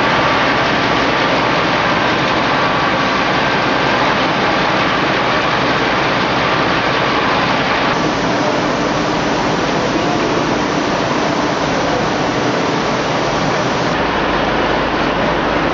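Loud, steady din of heavy diesel construction machinery inside a rock tunnel, with a large site loader running close by at first. The noise changes abruptly about halfway through and again near the end, but stays a continuous roar.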